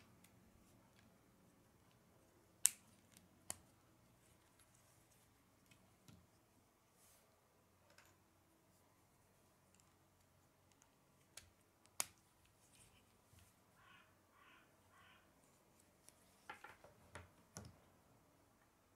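K'nex plastic connectors and rods clicking as they are snapped together by hand: a few scattered sharp clicks, the loudest about 3 s and 12 s in, and a quick run of several near the end, over near-silent room tone.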